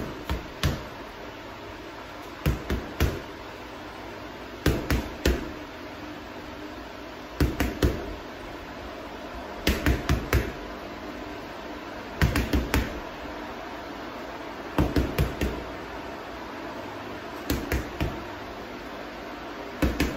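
Gloved fists punching a hanging heavy bag in quick combinations of two to four strikes, one combination about every two and a half seconds.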